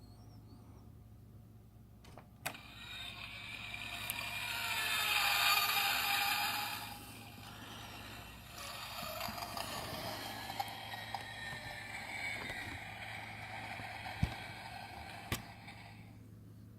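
Built-in sound effects of a frozen DeLorean miniature toy playing through its small speaker. A click comes about two and a half seconds in, then car-engine and whooshing effects swell to a peak and carry on more quietly, with a couple of sharp clicks near the end.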